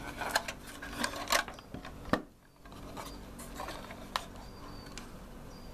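Handling noise as a hand moves the metal case of an antenna tuner: scattered clicks and rubbing, with a sharp click about two seconds in, then a faint steady hum with an odd click.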